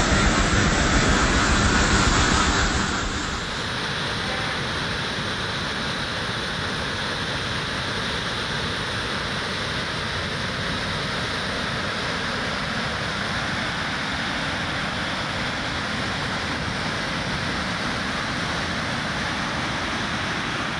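Fast-flowing floodwater in a swollen river rushing and churning as a steady, unbroken noise. It is louder at first, drops a little about three seconds in, then holds steady.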